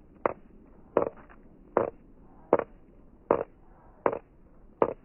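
Sharp knocks struck at an even pace, about one every three-quarters of a second, seven in all, each with a short ringing tail.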